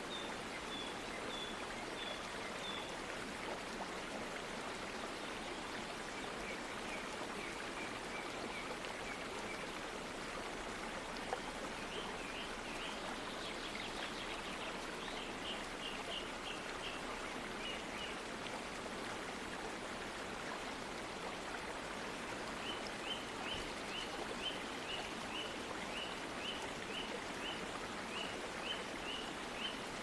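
Katiki waterfall: water cascading down a rock face, a steady rushing noise, with series of short high chirps heard over it at times.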